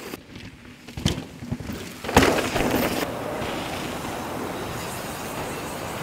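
Mountain bike tyres skidding and rolling on a dry dirt trail, with a couple of knocks about a second in and a louder hit just after two seconds, then steady rolling noise.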